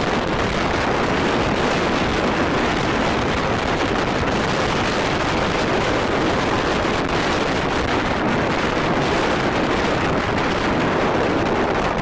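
Strong wind blowing across the microphone, a steady loud rushing, with rough sea surf breaking underneath.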